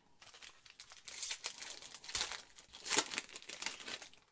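Foil trading-card pack wrapper crinkling and tearing as it is ripped open by hand. The crackling comes and goes and is loudest about three seconds in.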